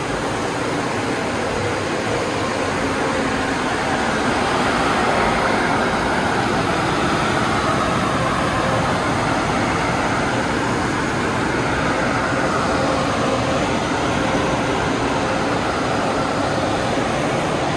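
Washworld car wash dryer blowers running, a loud steady rush of air that grows a little louder about four seconds in.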